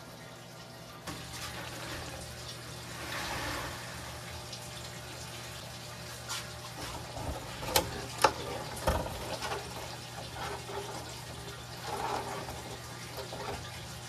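Steady trickle of running water over a low, even hum. A couple of sharp clicks come about eight seconds in.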